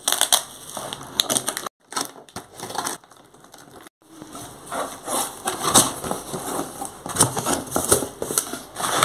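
Cardboard shipping box being torn open: packing tape ripped off and cardboard flaps pulled apart, then crumpled kraft packing paper crinkling inside. Irregular crackling and scraping that cuts out briefly twice.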